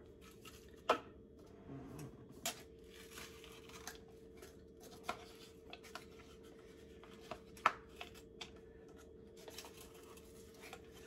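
Peeling the paper wrapper off a tube of refrigerated biscuit dough, with scattered clicks and taps and a sharp knock about a second in.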